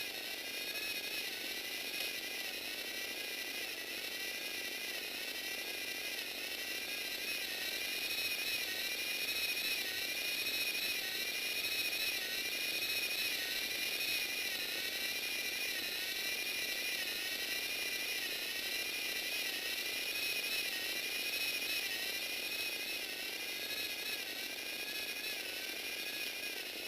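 Small electric motor driving a Lego Technic rotary gearbox: a steady whine of plastic gears meshing, its pitch wavering slightly up and down.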